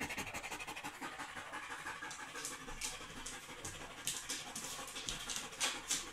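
Dog panting fast and hard in a rapid, even rhythm: stress panting brought on by fear of firecrackers, not by heat.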